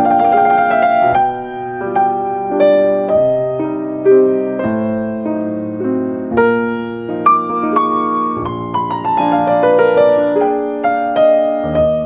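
Solo piano music playing gentle chords and a slow melody, each note struck and then fading.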